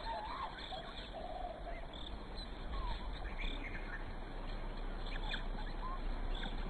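African wild dog pups calling faintly. A few short whines come in the first second or so, then scattered brief high squeaks and chirps, over a steady low background hum.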